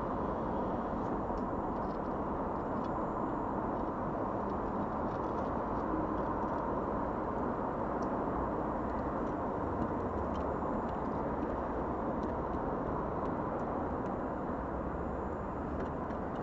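Steady outdoor background noise, an even rumble and hiss, with faint small ticks now and then.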